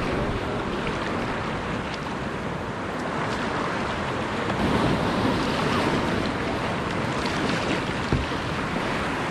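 Ocean water washing and wind on the microphone, a steady rushing that swells about halfway through, with one brief knock near the end.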